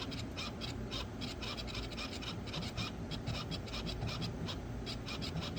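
PWM-driven compressor bypass valve clicking rapidly and unevenly, several clicks a second, as its duty cycle follows the throttle pedal. It is on a bench test with no boost pressure in it.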